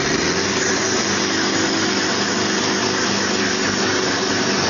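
Tractor diesel engine running at steady high revs: an even mechanical noise with a low hum under it.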